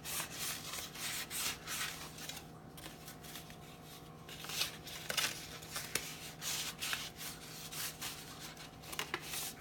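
Dowel rod rubbed back and forth against a paper petal held in the palm to curl it: a run of short, dry scraping strokes, with a lull about two to four seconds in.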